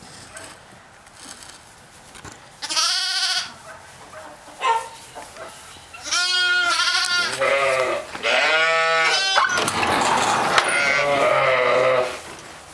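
Bottle-fed lambs bleating for their bottles: one wavering call about three seconds in, then a run of repeated, overlapping bleats that is loudest in the second half.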